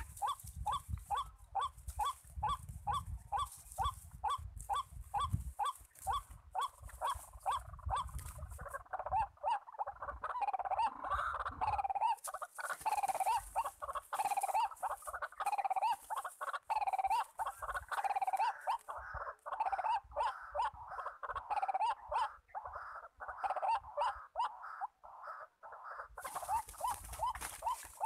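White-breasted waterhen (dahuk) calling: a fast string of repeated notes, about four a second, becoming louder and more varied after about nine seconds. A low rumble underlies the first eight seconds and returns near the end.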